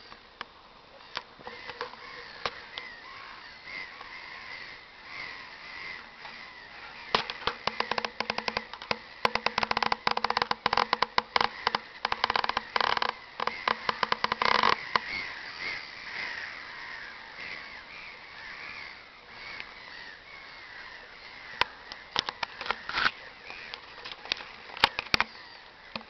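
A flock of gulls calling, many cries overlapping throughout. From about 7 to 15 seconds in, a dense run of loud, sharp crackling sits over the calls.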